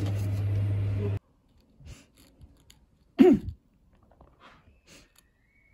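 An ATM's mechanism running with a steady low hum, cut off abruptly about a second in. About three seconds in, a person clears their throat once, a short loud "ahem" falling in pitch, with faint small clicks around it.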